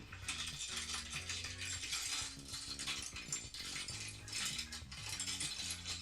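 A bunch of keys on a key ring jingling and clinking, shaken irregularly.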